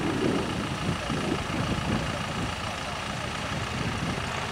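Hawker Hurricane's Rolls-Royce Merlin V12 engine running at low power, idling steadily as the fighter taxis on grass.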